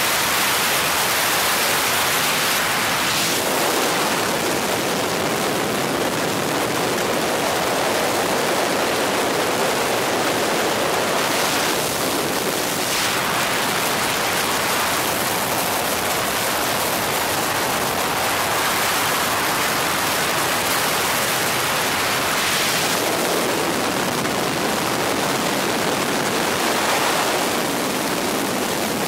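Steady rushing noise aboard a tour helicopter in flight: wind and helicopter noise, even and loud, with no separate beat from the rotor.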